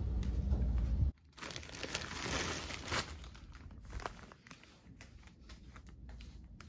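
A low rumble for about a second, then a plastic rice-cake bag crinkling and crackling as it is handled, loudest just after the change and softer crackles after about three seconds in.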